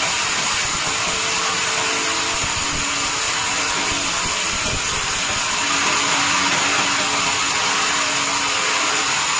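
Large sawmill band saw running and cutting through a squared log fed on a carriage: a steady, loud, high hiss of the blade in the wood over a faint machine hum.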